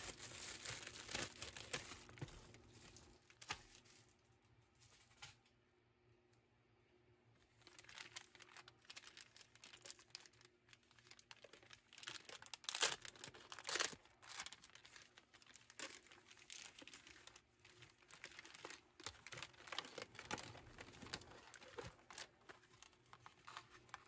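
Plastic packaging crinkling and rustling as a bubble-lined poly mailer and a clear plastic bag are handled. It is faint, pauses for a few seconds after the start, then comes back as irregular crackles, loudest about halfway through.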